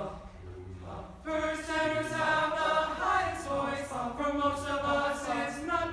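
High school male choir entering about a second in, singing held chords in several-part harmony that change every second or so.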